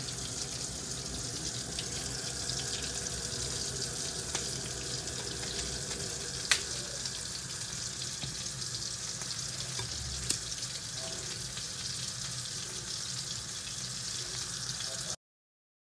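Flour-coated chicken wings deep-frying in hot oil: a steady sizzle with two sharp pops, about six and a half and ten seconds in. The sound cuts off suddenly near the end.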